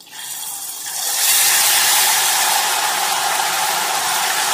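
Chilled, watery ghevar batter dropped into very hot ghee in a saucepan, frying with a loud, steady sizzle that starts as the batter goes in and builds over the first second.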